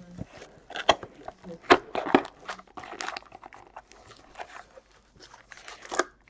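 Plastic shrink-wrap crinkling and crackling as it is pulled off a cardboard box of trading cards, then the box flap is opened. It comes as irregular crackles with a few sharp clicks, the loudest about two seconds in and one near the end.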